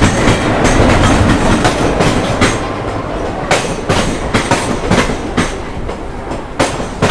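Gujarat Express passenger train rolling along the platform, its wheels clacking over the rail joints about twice a second over a steady rumble. The rumble is loudest at the start and eases a little later.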